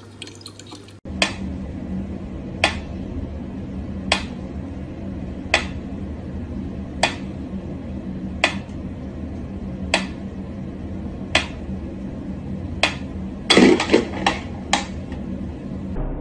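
A pyramid-shaped mechanical metronome ticking slowly, one sharp click about every one and a half seconds, over a low steady hum. Near the end comes a quick cluster of louder clicks and knocks.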